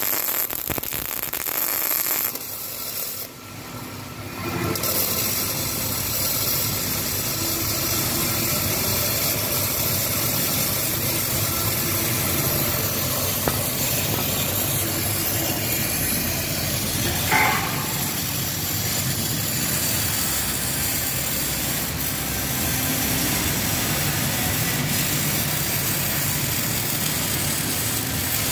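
MIG welding arc crackling and sputtering for about two seconds, then stopping. After a short lull a steady machine hum takes over and runs on.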